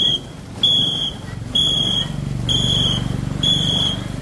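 Whistle blown in short, evenly spaced blasts, about one a second, keeping the stroke rhythm for a longboat paddling crew. A low rumble runs underneath in the second half.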